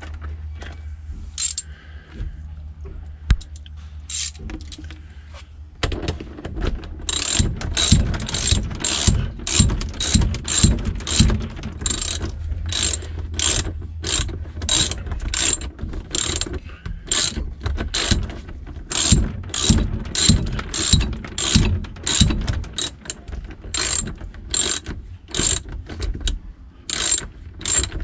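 Hand ratchet wrench clicking as it is swung back and forth, tightening the nut on a deck cleat's through-bolt from below the deck. A few faint clicks at first; about six seconds in, a steady run of sharp clicks begins, about two a second.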